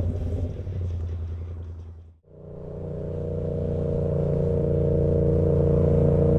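Yamaha MT-07 parallel-twin engine running as the motorcycle rides through traffic. The sound fades out to almost nothing about two seconds in, then fades back in with the engine holding a steady note.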